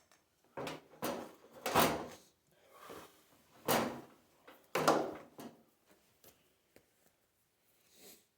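A handful of short knocks and scrapes from handling the multi-tool and its parts on a work surface, about five within the first five seconds, then a few faint taps.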